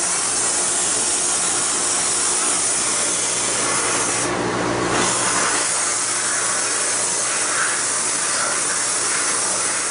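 Blast cabinet's blast gun spraying 120-grit aluminum oxide against an anodized aluminum AR upper receiver: a loud, steady hiss of compressed air and grit, with a low hum underneath. The part is being roughed up, not stripped, before coating.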